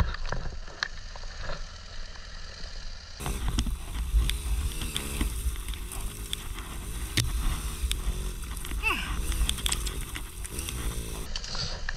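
Motorcycle engine running with its revs rising and falling again and again over a low rumble, with scattered knocks and rattles.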